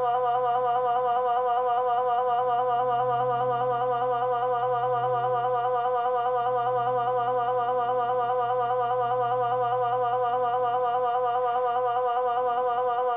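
Google voice search's synthesized voice through a phone speaker, reading a long string of zeros so fast that they run together into one steady, warbling electronic drone.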